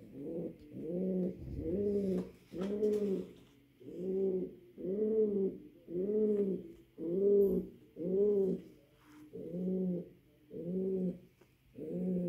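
Male pouter pigeon cooing over and over, about once a second, each coo rising and then falling in pitch. This is his call to his hen for mating.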